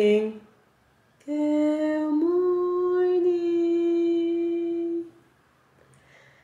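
A woman singing one long held note. It starts about a second in, steps up slightly in pitch, holds steady for several seconds and then stops.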